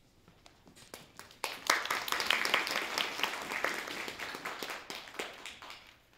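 Audience applauding: a few scattered claps about a second in quickly build to a full round of applause, which then thins out and dies away near the end.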